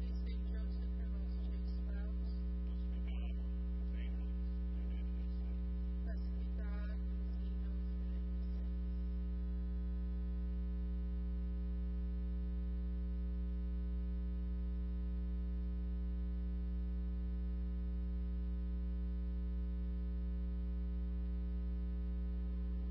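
Steady electrical mains hum with a stack of overtones on the audio feed, unchanging throughout. Faint traces of music fade out during the first several seconds.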